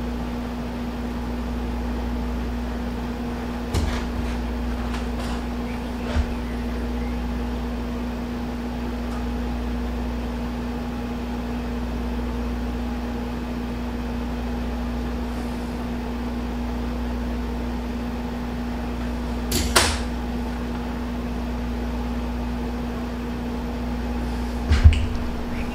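Steady motor hum with a constant low tone, broken by a few short knocks, the loudest about twenty seconds in and two close together near the end.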